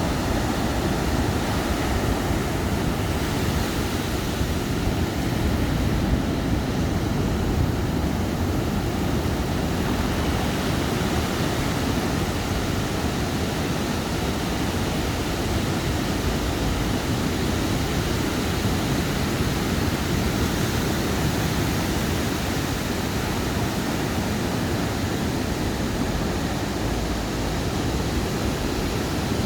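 Ocean surf breaking on a sandy beach: a steady, even rush of wave noise with a heavy low rumble and no distinct single swells.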